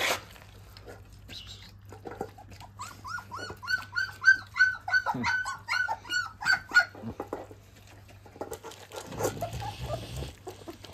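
Young puppies whining, a quick string of short, high, rising-and-falling yelps at about three a second, the cries of hungry puppies eager to be fed. A sharp knock sounds at the very start.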